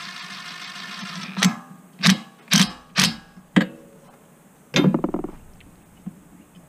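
Cordless DeWalt impact driver on a socket extension running down a valve cover bolt, then snugging it with several short, sharp bursts of hammering, and one more burst about five seconds in. The valve cover bolts are being tightened by impact gun rather than with a torque wrench.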